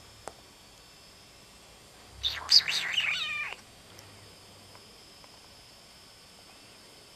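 A domestic cat meows once, about two seconds in: a single drawn-out call lasting over a second that drops in pitch at its end.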